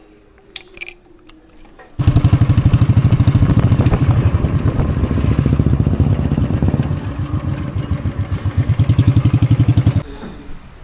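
Royal Enfield Bullet's single-cylinder engine running with a rapid, even thump. It starts suddenly about two seconds in and cuts off abruptly near the end.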